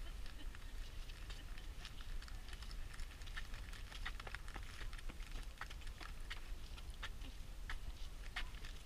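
Footsteps of several people climbing stone stairs: an irregular run of shoe taps and scuffs, over a steady low rumble.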